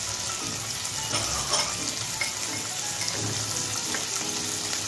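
Onions, tomatoes and green chillies frying in hot mustard oil in a nonstick kadai, a steady sizzle.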